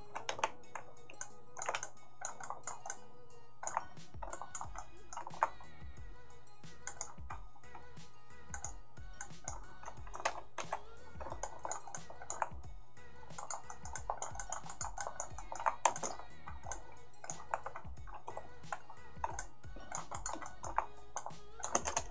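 Irregular clicks from a computer keyboard and mouse, in quick clusters, over quiet background music.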